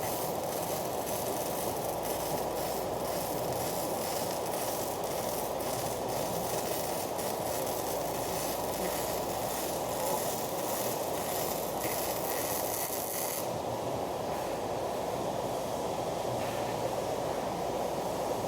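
Arc welding: a steady crackling hiss from the welding arc. The sharper high crackle fades about 13 seconds in while the hiss carries on.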